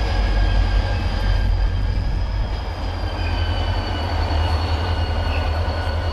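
Korail diesel locomotive running light and moving slowly away, with a steady low drone from its diesel engine. Several thin, high-pitched wheel squeals sound at once, held steady and sagging slightly in pitch.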